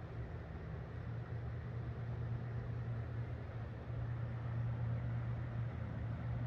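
A boat's engine running at a steady speed: an even low drone with a hiss over it.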